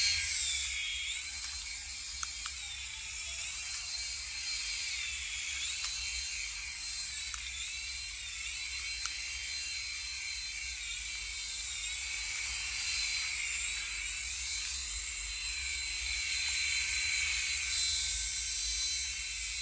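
Small electric motor and rotor of a restored remote control toy helicopter running with a high-pitched whine, its pitch dipping and rising again several times as the throttle changes, and a little louder near the end.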